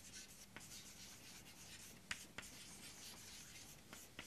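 Chalk writing on a blackboard: faint scratching of the chalk across the board, with a few sharp taps as it strikes the surface.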